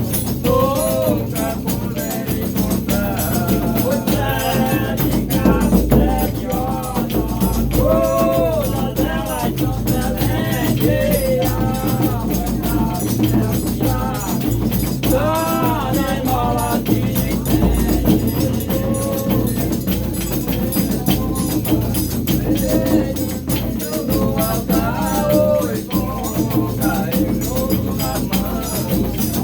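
Brazilian Reisado folk music: voices singing a melodic line over steady rattling, shaker-and-tambourine-type percussion with a low drum underneath.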